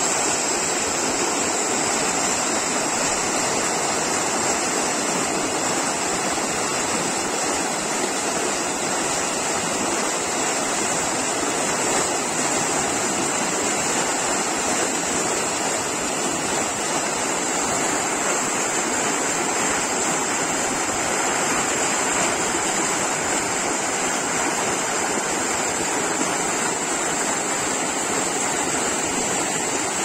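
Canal water rushing through a narrow concrete sluice gap and falling into a pool of churning white water: a steady, unbroken rush.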